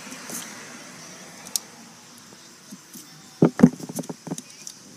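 A knife working into a pumpkin: a quick cluster of short knocks and scrapes about three and a half seconds in, the first two the loudest, after a single click earlier.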